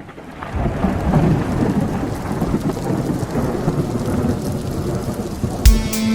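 Rain falling with low rolling thunder, fading in over the first second. About five and a half seconds in, music begins with a heavy drum hit and sustained pitched notes.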